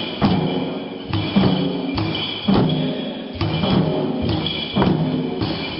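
Limbu chyabrung, a large two-headed barrel drum, beaten in a dance rhythm: sharp strokes every half second to a second, each with a short ringing boom.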